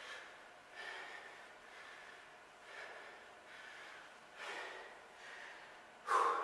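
A man breathing hard while doing air squats: faint exhales about every two seconds, in time with the squats, and a louder breath near the end.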